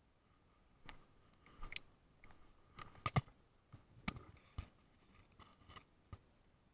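Irregular clicks, knocks and rustles of handling noise on an action camera, as a camera strap and hand brush and tap against it close to the microphone.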